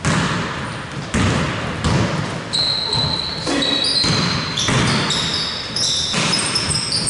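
Basketball bouncing on a hardwood gym floor during play, sharp knocks about every half second to a second, with short high squeaks of sneakers on the court.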